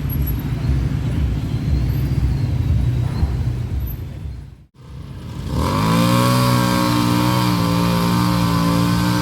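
Off-road vehicle engine rumbling, fading out abruptly about four and a half seconds in. After a moment of silence, a steady pitched drone rises and then holds.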